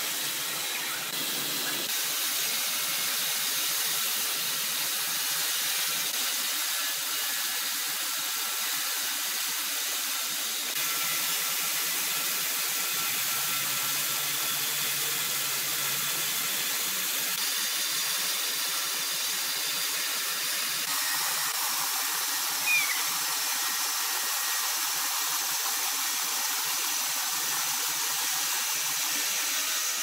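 Large horizontal band sawmill cutting through a huge log: a steady, high hissing whine of the blade running through the wood. A brief sharp squeak about three quarters of the way through.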